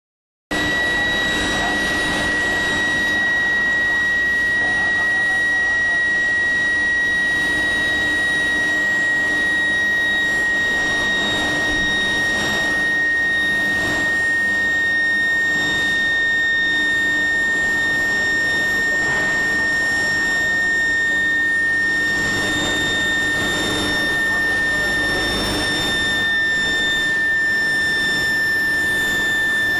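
Induction billet heating furnace running, its coil giving off a steady, loud, high-pitched whine with overtones that drifts very slightly lower in pitch, over a background of mill noise. The whine is the medium-frequency current driving the induction coil.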